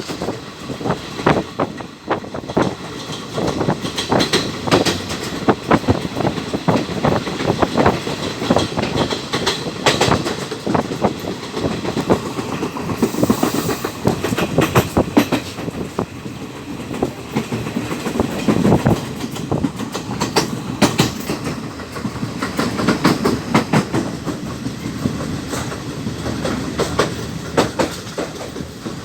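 Passenger train running along the track, its wheels knocking over rail joints amid a dense clatter of irregular clicks and rattles.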